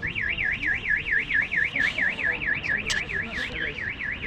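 Car alarm siren warbling rapidly up and down, about five or six sweeps a second.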